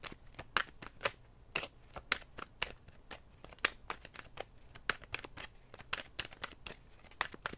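Tarot deck being shuffled by hand: a string of irregular short, sharp clicks and taps as the cards slap against each other, a few per second.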